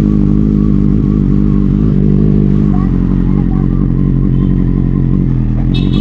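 Motorcycle engine running at a steady speed, a constant low drone.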